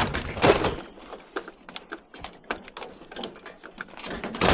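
Scrap being handled: a quick, irregular run of clicks and knocks, with louder clanks in the first half-second and again at the end.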